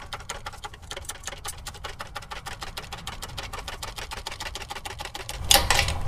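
Shop press working a wheel bearing out of a Toyota steering knuckle: a steady, rapid clicking of about ten clicks a second. Near the end come two louder knocks as the bearing comes free of the knuckle.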